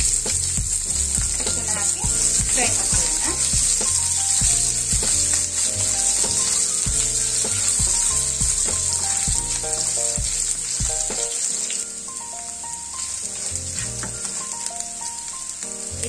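Hot oil sizzling in a non-stick frying pan as a tempering of dals, green chillies, curry leaves and ginger fries, stirred and scraped with a wooden spatula. Background music plays under it, its low notes dropping away about twelve seconds in.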